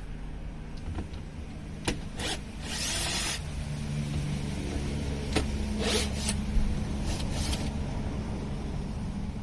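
A steady low mechanical hum runs throughout. Over it come scattered clicks and a few short scrapes and rustles as door-trim parts and screws are handled.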